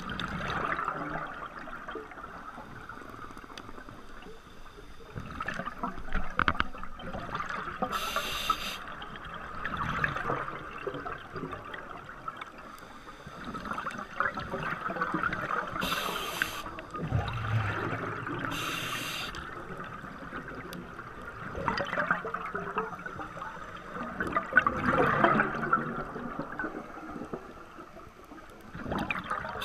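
Scuba diver breathing through a regulator, heard through an underwater camera housing: short hisses on the inhales and rushing bubbles on the exhales, every few seconds.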